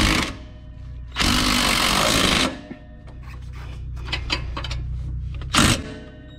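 Hand-held power tool spinning a socket on a long extension to run the nut down onto the new rear shock's lower mounting bolt, in a long burst of about a second and a half and a short burst near the end, with clicks and rattling between.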